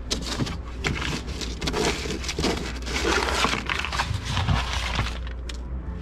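Paper and small loose items rustling, crinkling and scraping as junk is rummaged through and handled, irregular crackles throughout over a steady low hum.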